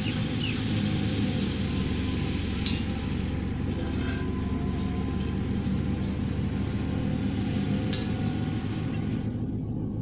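A steady low rumble with a hum under it. A few faint short chirps come near the start, and two sharp clicks fall about three seconds in and about eight seconds in.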